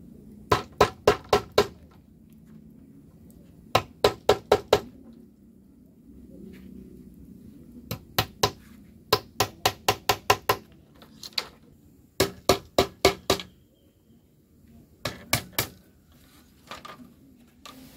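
Hammer nailing split bamboo strips onto a hollow bamboo pole: short bursts of quick, sharp taps, about four or five a second, with pauses between the bursts.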